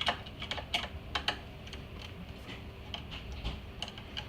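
Irregular sharp clicks and taps of a screwdriver and small metal and plastic parts while screws are being taken out of an iMac G3, the clicks coming close together at first and more sparsely later.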